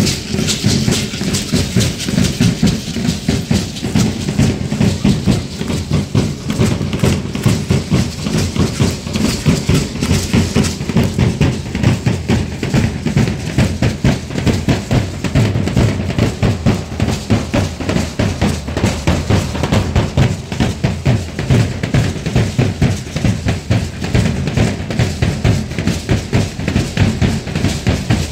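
Danza troupe drums beating a fast, steady rhythm, with a steady high hiss above the drumbeats.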